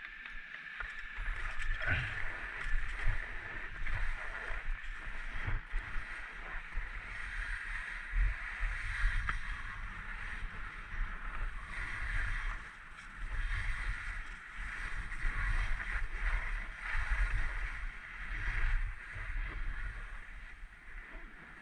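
Skis scraping and sliding over firm, tracked snow on a fast descent, with wind buffeting the microphone. The noise rises and falls every couple of seconds.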